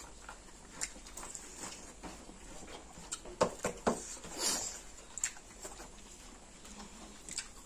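Close-up eating sounds of chicken curry and rice eaten by hand: wet chewing and lip smacks as scattered clicks, with two sharper clicks a little after three seconds and a short breathy noise just after.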